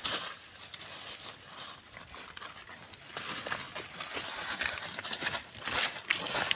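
Dry leaves and gravel rustling and crunching as a Komodo dragon shifts its body and head over the leaf litter while swallowing a whole chicken. The crackling comes in irregular scratchy bursts and grows busier about halfway through.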